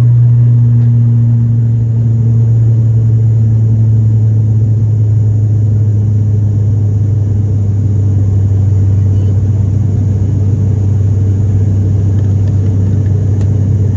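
Cabin noise of an ATR 72-500 turboprop climbing out after take-off: a loud, steady low drone from the Pratt & Whitney PW127 engine and six-blade propeller just outside the window. The drone eases slightly about two seconds in and then holds steady.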